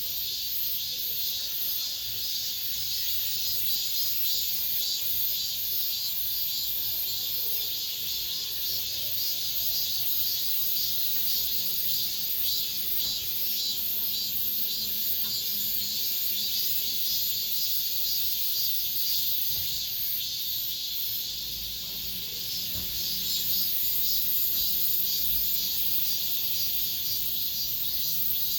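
Cicadas singing in chorus: a dense, steady high-pitched buzz with a fine rapid pulsing, swelling a little louder about three-quarters of the way through.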